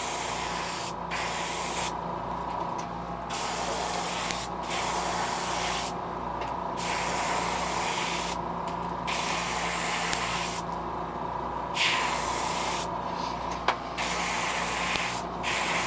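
Airbrush spraying light coats of gold paint onto a jerkbait lure: repeated bursts of hiss with short pauses between them as the trigger is let off, over a steady hum.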